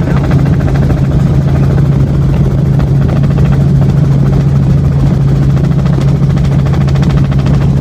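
Helicopter in flight: the steady, loud drone of engine and rotor, with a strong low hum that holds level throughout.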